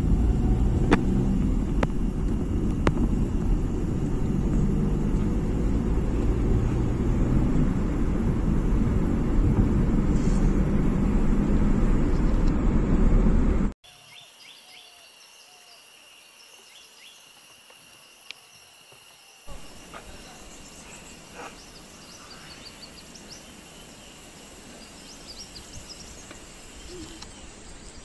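A vehicle driving along a forest road, heard as a steady low rumble of engine and road noise that cuts off suddenly about halfway through. A much quieter forest ambience follows, with a steady insect drone and scattered faint bird calls.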